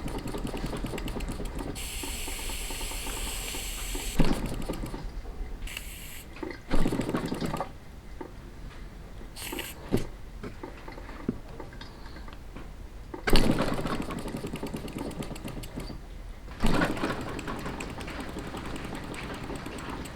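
Small model steam engine running with a fast, even mechanical clatter and some hiss. The sound changes level abruptly several times.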